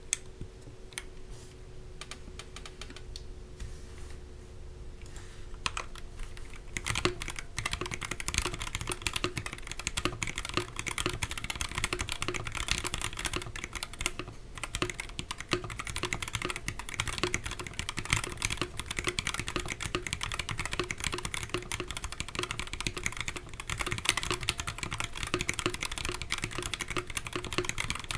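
Typing on a mechanical keyboard with stock, unlubricated Linjar switches: a few scattered keystrokes at first, then steady, fast typing from about seven seconds in.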